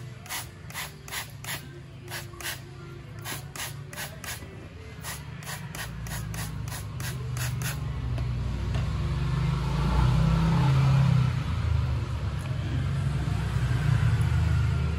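Trigger spray bottle squirting degreaser onto a metal engine valve cover, about three squirts a second for the first eight seconds or so. Then a stiff brush scrubs the foamed grease on the cover, over a low rumble that builds up and is loudest around ten seconds in.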